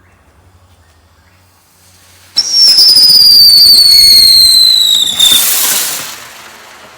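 Magic Crystal consumer firework going off about two and a half seconds in: a loud, shrill whistle that glides slowly downward for nearly three seconds, then a burst of hiss that fades away.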